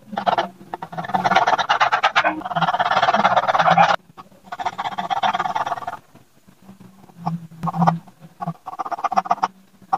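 Graphite pencil scratching rapidly back and forth across paper in dense hatching strokes. It comes in stretches of a second or two with short pauses, thinning out to sparser strokes in the second half.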